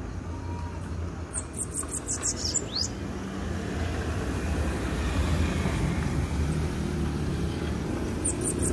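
Caged sibite (bananaquit) singing a short, very high, rapid trill of repeated notes that ends in an upward sweep, once about a second in and again near the end. Under it runs a low steady vehicle rumble that grows louder toward the end.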